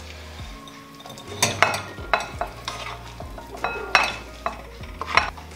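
A utensil scraping and knocking as cooked minced-beef and bell-pepper stuffing is scooped out of a pan into a glass bowl, with about seven sharp clinks, some with a brief ring.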